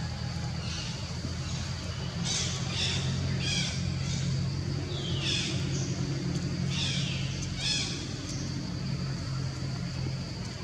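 A series of short, high-pitched animal calls, each falling in pitch, about seven of them in the middle of the stretch, over a steady low hum.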